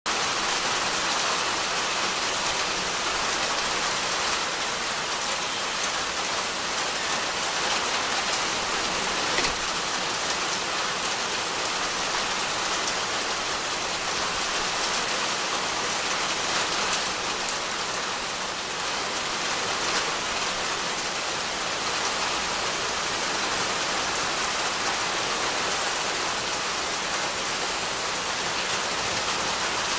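Steady rain falling on trees and leafy undergrowth: an even hiss, with a few sharper drop hits.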